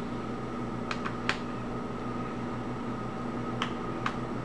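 A handful of small sharp clicks and taps from handling a laptop's case, parts and small tools: three close together about a second in, two more near the end. A steady low electrical hum runs underneath.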